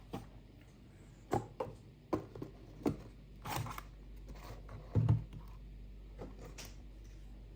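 Blu-ray box set packaging being handled: scattered clicks and taps, a brief rustling scrape about three and a half seconds in, and a dull thump about five seconds in.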